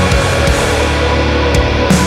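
Heavy, distorted rock or metal music with a steady driving beat.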